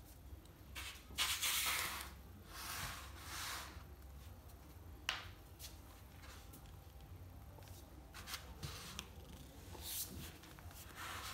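Fabric rustling as the body twists and shifts, with one sharp pop about five seconds in and a few fainter clicks later: upper-back joints cracking during self-manipulation.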